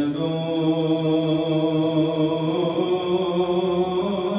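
A man's voice chanting in one long held melodic line, rising slightly in pitch about three seconds in.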